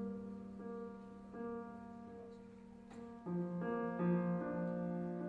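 Slow piano music: held chords that change every second or so, growing louder about three seconds in.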